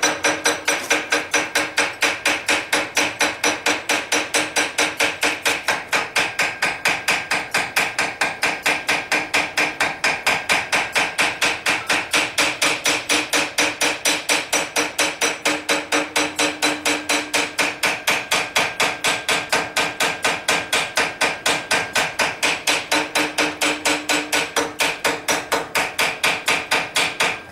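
Steady, rapid hammer blows, about four a second, from the peen of a 2-pound hammer striking a railroad spike clamped in a vise. Each blow rings with a metallic tone as the steel is feathered back around the punched eyes.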